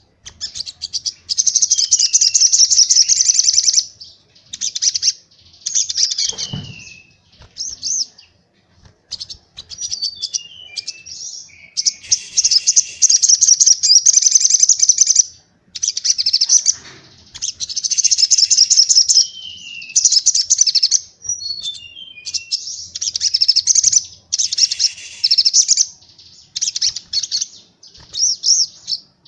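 White-eye (pleci) song in rapid, high, chattering 'tembakan' bursts. Each phrase of fast trills lasts one to three seconds, some end in short descending notes, and the phrases are separated by brief pauses.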